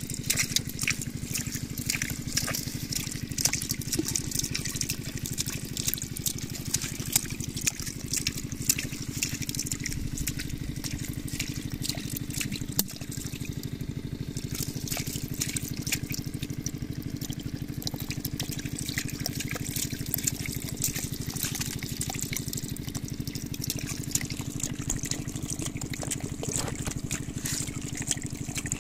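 Water trickling and splashing steadily, with many small drips and ticks over a steady low hum.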